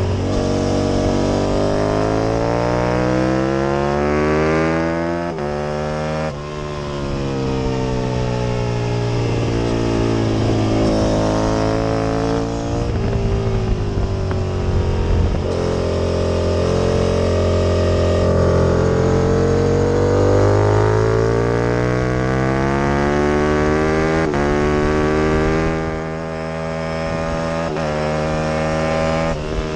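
Aprilia RSV Mille V-twin racing motorcycle engine at full throttle, its pitch climbing through each gear and dropping sharply at the upshifts, then falling away as it slows for corners.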